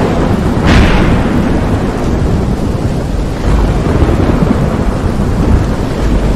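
Thunderstorm sound effect: a sharp thunder crack under a second in, then low rolling thunder rumble over steady rain hiss.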